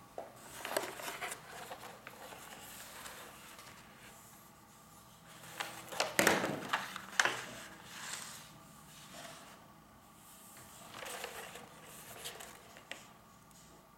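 Sheet of silicone paper rustling and crinkling as it is unrolled and smoothed flat on a cutting mat, in irregular bursts, loudest about halfway through, with a few sharp clicks there.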